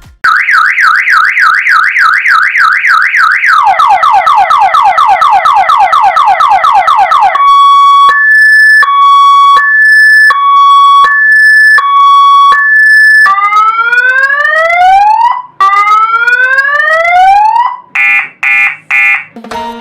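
DC electronic siren stepping through its tones. It opens with a fast up-and-down yelp, then a quicker falling warble from about 3.5 s. From about 7 s it switches to a two-note high-low alternation, then two slow rising wails, and ends with four short pulsed beeps.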